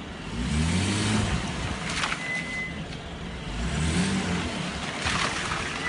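Mercedes-Benz W221 S-Class moving slowly, its engine pulling up twice, with a short high-pitched brake squeal about two seconds in and again at the very end. The brake pads are squealing even though the pads and discs are new.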